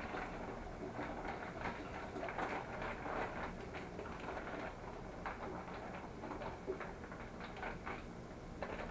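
Concentrated grape juice running out of a plastic bag into a plastic fermenting pail, with the bag rustling as it is squeezed: faint, irregular pattering and small clicks.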